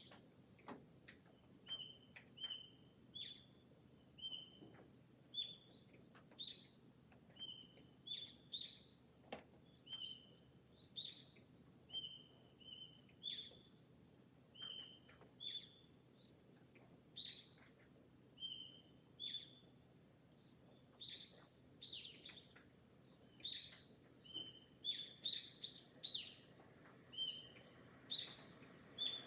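Garden birds chirping: short, sharp calls repeated about once a second, with a quicker cluster of calls near the end.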